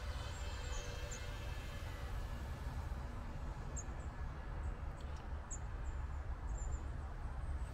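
Quiet outdoor ambience: a steady low wind rumble on the microphone, with short high bird chirps now and then. A faint whine from the FPV drone's motors fades away over the first second or two.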